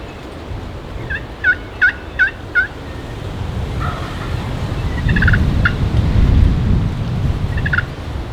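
Turkey calling in strong wind: a series of four yelps, then a short rapid gobble-like rattle about five seconds in and another near the end. Wind rumbles on the microphone throughout, rising in the second half.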